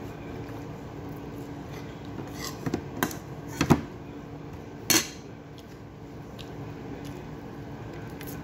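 A plate clinking and knocking a few times, the loudest just past the middle, as rice and meat are eaten by hand from it, over a steady low hum.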